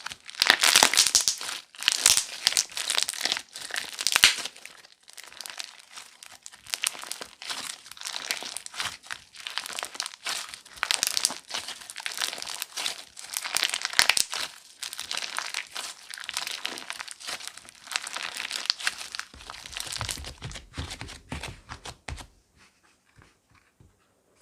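Slime being squeezed and pressed by hand, giving a dense run of crackling, crinkling pops, loudest in the first few seconds and dying away shortly before the end.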